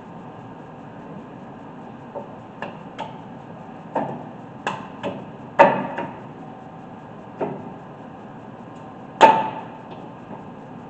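Irregular metal clanks and knocks as front brake parts on a 2003 Dodge Ram 1500 are worked into place: about ten sharp hits, the two loudest, a little after five seconds in and about nine seconds in, ringing briefly.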